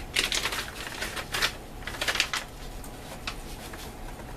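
Plastic drink pouch and canteen being handled: crinkling, clicking rustles in three short bursts in the first half, then a single small click.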